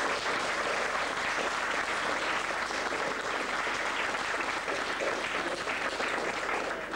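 Audience applauding, a roomful of people clapping steadily.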